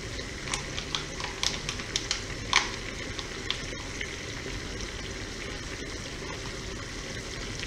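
A pan of chicken gizzards in water at the boil, bubbling with a steady hiss. In the first few seconds a silicone spatula scrapes sour cream from its tub into the pan, giving a few light taps and clicks, the sharpest about two and a half seconds in.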